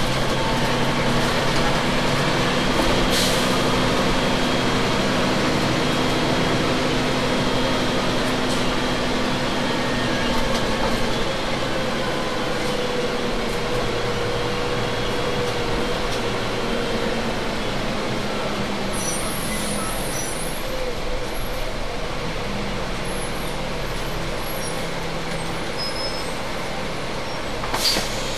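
Double-decker bus running, recorded near its axle: a steady engine and drivetrain drone with a wavering whine, and a brief high hiss about two-thirds of the way through.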